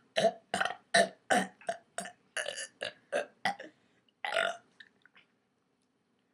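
A girl burping in a quick string of short burps, about three a second for nearly four seconds, then one longer burp about four seconds in.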